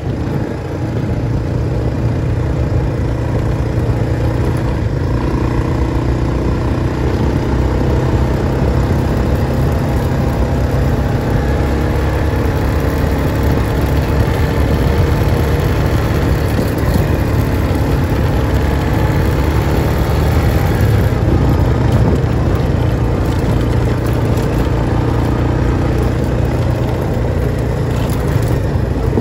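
Off-road vehicle engine running steadily while driving along a dirt track: a loud, low rumble with a gently wavering pitch.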